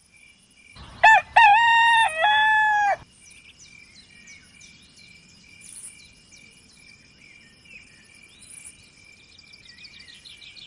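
A rooster crows once, starting about a second in and lasting about two seconds: a short note, then a long held one. Afterwards faint small-bird chirps and a steady high insect-like trill carry on in the background.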